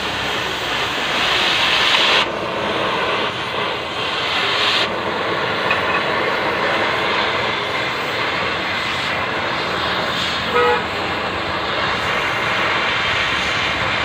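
Oxy-fuel gas cutting torch running with a steady hiss as it cuts metal. The hiss is brightest for the first couple of seconds and drops down a step twice in the first five seconds. A brief short tone comes about ten seconds in.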